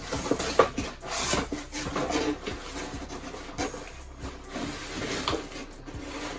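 Packaging being handled and pulled apart: irregular rubbing and scraping with scattered small knocks.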